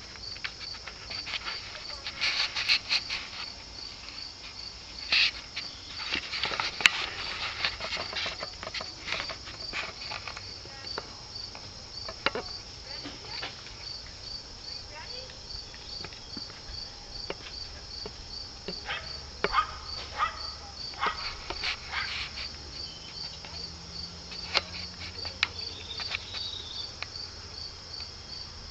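Crickets chirping in a steady, even rhythm of about two to three high chirps a second, with scattered sharp clicks and rustles over it.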